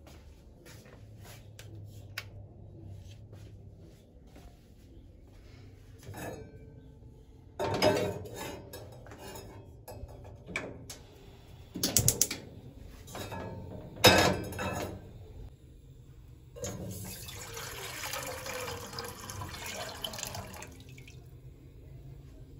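Kitchen work at a gas stove: an enamel pot and a metal griddle clank and knock several times, the loudest about two-thirds of the way in. Then water runs or pours for about four seconds.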